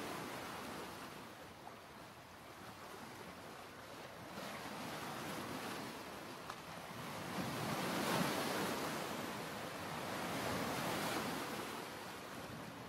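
Ocean surf washing onto a beach: a steady rush of noise that swells and ebbs, rising most about eight seconds in and again near eleven seconds.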